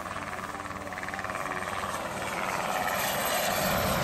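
Syton AH130 ultralight helicopter with a Solar T62 turbine flying low toward the listener, its rotor chop and turbine noise growing steadily louder as it approaches.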